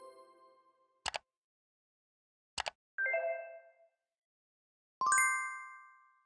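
Title-card sound effects: the tail of a chiming jingle fades out, two quick double clicks sound about a second and two and a half seconds in, and then two bell-like dings, at about three seconds and about five seconds, each ring out and die away.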